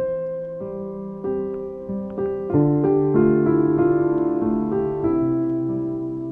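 Background piano music: slow notes and chords, each struck and left to ring.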